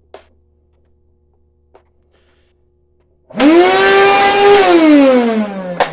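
Hoover SpinScrub carpet cleaner's motor starting up about three seconds in, quickly rising to a loud whine, then falling steadily in pitch, with a sharp click near the end. The machine is faulty: it rattles badly in the hand and smells of electricity, which the owner takes as a bad sign.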